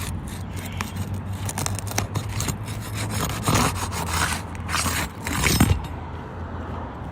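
Rasping scrapes of a tool being worked under an asphalt shingle to break its adhesive seal, in a run of strokes that are loudest a little past the middle and stop near the end.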